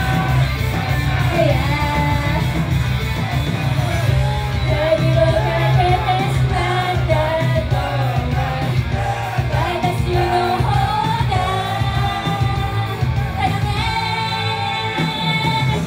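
Japanese idol girl group singing a pop song live over loud backing music, with a long held note near the end.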